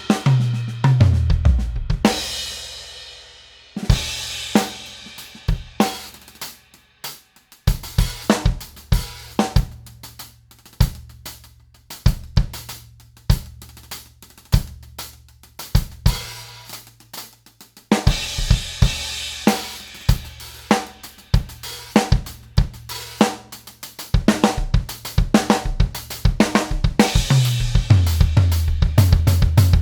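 Drum kit with Meinl cymbals being played. It opens with a tom fill falling in pitch into a crash left to ring out, then settles into a beat on kick, snare and hi-hat. The beat builds with more cymbal from about halfway through and ends on another falling tom fill.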